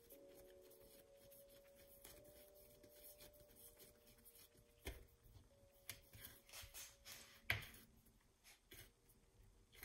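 Quiet handling of bread dough on a stone countertop: faint rustles and soft taps, a knock about five seconds in, and a louder thump about three-quarters of the way through as the dough ball is set down and pressed flat. A faint steady tone lies underneath.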